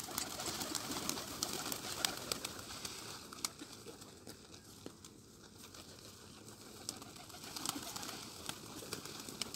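A flock of gola pigeons cooing, with many scattered sharp clicks among them. It is a little quieter in the middle.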